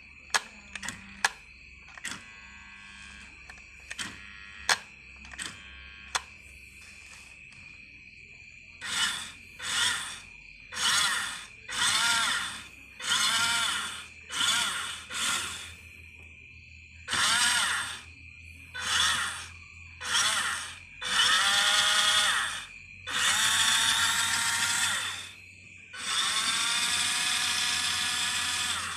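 Twin 260-size brushed electric motors, one on each axle of an MN90 RC truck, running in repeated short bursts of throttle. Each burst is a whine of motor and gears that rises and falls in pitch, and the last few bursts are longer. A handful of sharp clicks come first.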